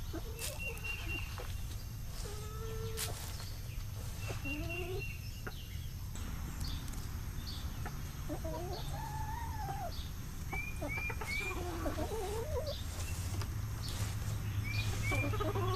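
Backyard hens clucking and calling with scattered short calls, a few of them longer and rising and falling. There are a few quick high chirps about two-thirds of the way in and again near the end, over a steady low rumble.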